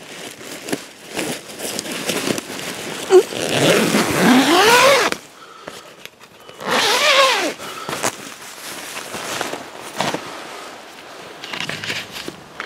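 Tent door zipper pulled in two long strokes, the first rising in pitch and the second falling, amid crinkling and rustling of the tent's nylon fabric.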